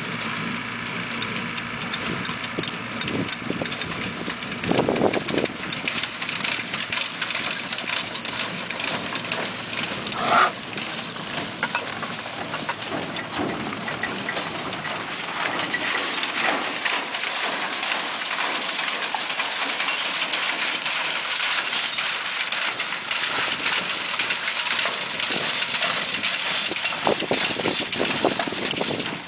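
Steady mechanical clatter and rattle of a ground-driven hay loader and hay wagon being drawn along, with a brief higher tone about ten seconds in.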